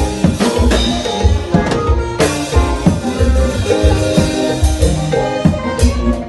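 Live band music with the drum kit to the fore, its beat steady and punchy, and a loud crash about two seconds in.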